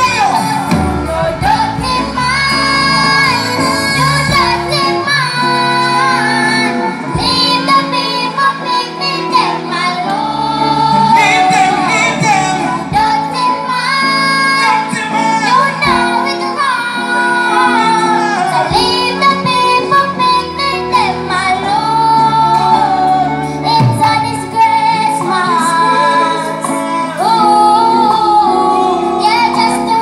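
A young girl singing live into a microphone, holding long notes, over instrumental accompaniment played through a stage sound system.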